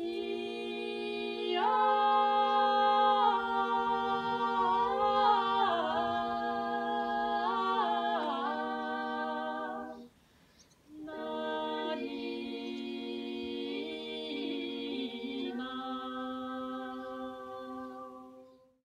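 Women's voices singing a Georgian folk song a cappella in close harmony, one voice holding a steady low drone note under the moving upper parts. The singing breaks off briefly about ten seconds in, then resumes for a second phrase that fades out near the end.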